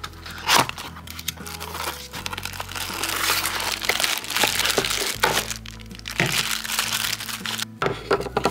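Crinkling plastic packaging and a rustling cardboard box as an aquarium air pump is unpacked by hand, in irregular crackles and rustles, over steady background music.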